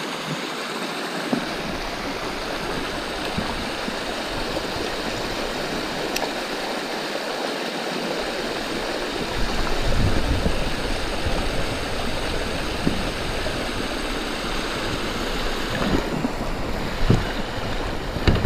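Steady rush of flowing creek water. A low rumble joins about halfway through, and there are a few light knocks near the end.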